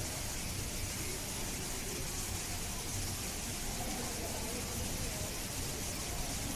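Faint, indistinct background chatter of voices over a steady hiss and low hum.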